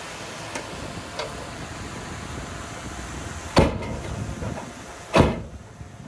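Heavy construction machinery running with a steady rumble, broken by two loud bangs about a second and a half apart.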